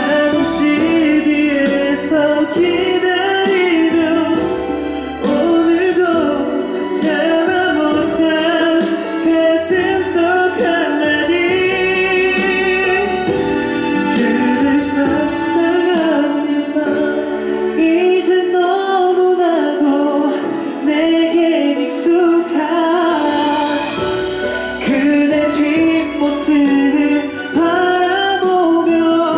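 A K-pop song with singing over a steady beat.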